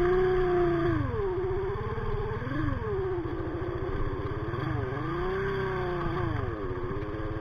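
Sigma 250cc motorcycle engine running at low speed over loose rocks. The engine note holds high, drops about a second in, then rises and falls several times with the throttle.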